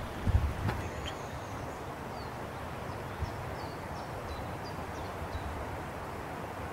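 Steady wind noise with low rumbling buffets on the microphone in the first second, and small birds chirping faintly several times.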